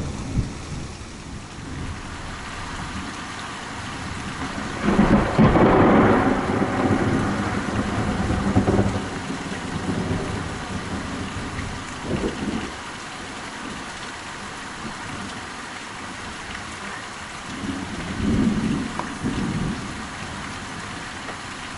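Heavy rain falling steadily, with a long rolling peal of thunder that comes in about five seconds in and dies away over several seconds. Shorter, weaker rumbles follow near the middle and again near the end.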